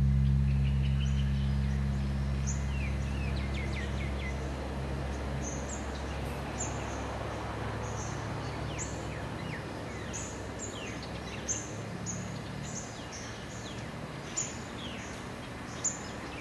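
The deep hum of a large hanging temple gong, struck just before, dies away over the first several seconds. Small birds keep chirping with many short, high, falling calls.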